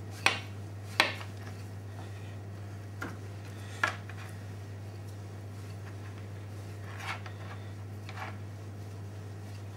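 Scattered knocks and clinks of a kitchen knife and utensils being handled at the work surface, the two sharpest about a second apart near the start and weaker ones spread through the rest, over a steady low hum.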